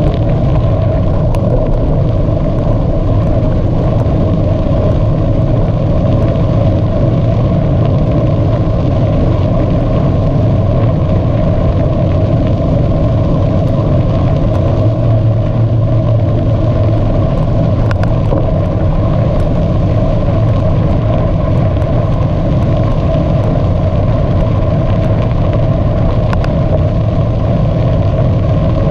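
Steady loud rumble of a bicycle ride: wind on the microphone and tyres rolling, with a few faint clicks here and there.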